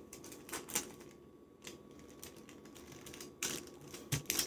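Kite paper being handled and pressed flat on a wooden tabletop: scattered sharp crinkles and clicks of the paper, with a couple of louder taps near the end.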